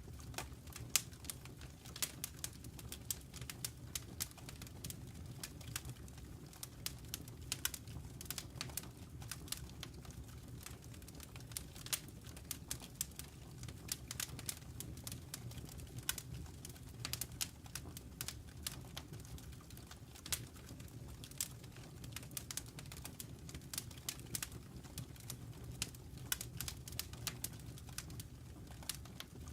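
Wood fire crackling in a fireplace: irregular sharp pops and snaps, several a second, over a steady low rumble of the burning logs.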